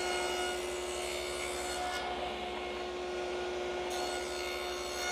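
Table saw running steadily with its blade cutting a groove for the drawer bottom along a pre-finished plywood drawer side.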